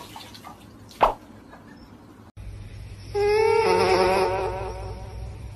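A single short knock about a second in. Then a sleeping dog whines: one long, wavering note that fades away.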